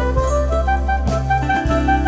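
Background jazz music: a saxophone-like lead melody over bass and drums.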